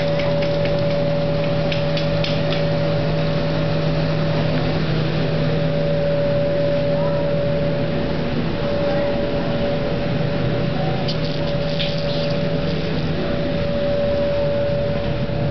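Steady machine hum with a constant whining tone. There are light clicks and knocks in the first couple of seconds and again about two-thirds of the way through.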